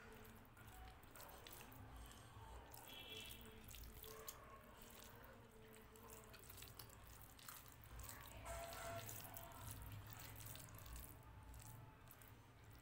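Faint wet squelching and small clicks of bare fingers mixing cooked rice with dal on a plate.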